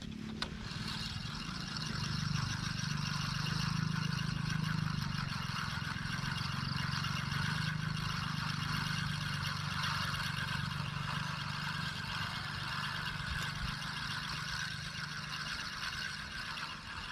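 A small engine running steadily with a low hum, and a single sharp click about half a second in.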